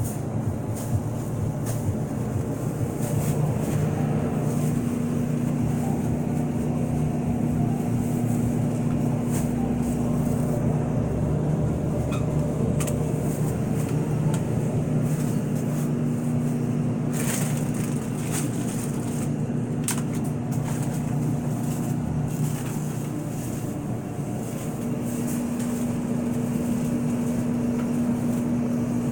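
Steady electrical hum of refrigerated produce display cases, with a low tone that drops out and comes back a few times, and a few light handling clicks.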